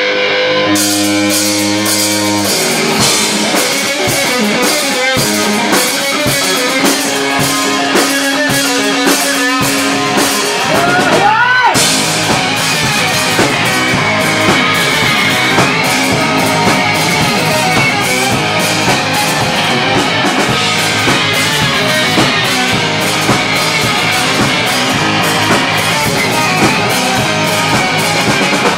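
Rock band playing live: electric guitar and drum kit with a dense, driving beat, a held guitar note, and a sliding rise in pitch about eleven seconds in.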